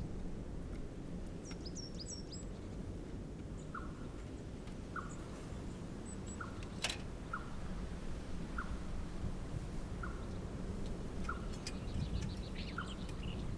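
Wild birds calling outdoors: a few quick, high, falling chirps near the start and again near the end, and a short lower note repeated about once a second through the middle. These sit over a steady low background rush, with one sharp click about seven seconds in.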